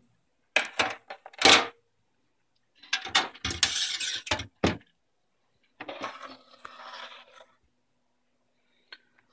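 Handling clatter of computer hardware: a circuit board and hands knocking and clinking against a sheet-metal case. There are three sharp knocks in the first two seconds and a quick run of clinks about three to four and a half seconds in, then a softer scraping rustle.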